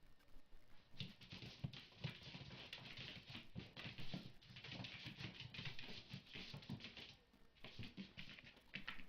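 A pet animal scrabbling and scuffling: a rapid, irregular run of soft scratches and taps starting about a second in, with a brief lull near the end before it picks up again.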